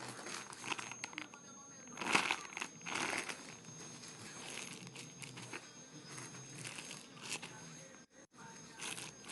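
Irregular crinkling and rustling from plastic being handled, louder about two and three seconds in.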